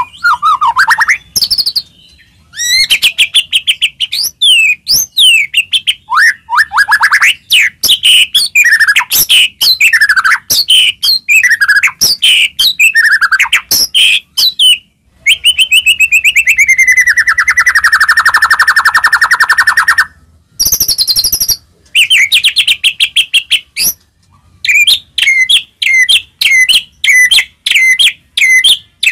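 White-rumped shama (murai batu) singing a loud, varied 'gacor' song of whistled phrases and fast trills, with a long buzzy stretch about halfway through and quick repeated notes near the end.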